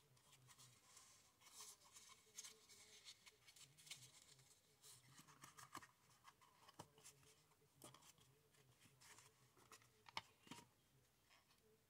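Faint handling of a small plastic packaging box: light rustling, scraping and scattered clicks of plastic as the small sensor is fitted into it, with one sharper click near the end.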